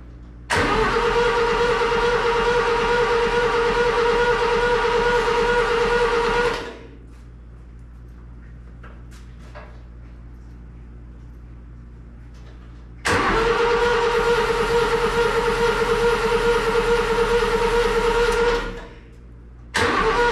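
Starter cranking a Satoh S-550G tractor's four-cylinder gas engine in three attempts: about six seconds, then about five and a half, then a third starting near the end. Each attempt has a steady starter whine over the engine's rapid turnover pulses and winds down when released. The engine turns over at an even pace without catching.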